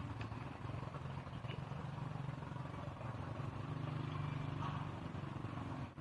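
An engine running with a steady low hum that grows louder from about three and a half seconds in, then eases off near the end.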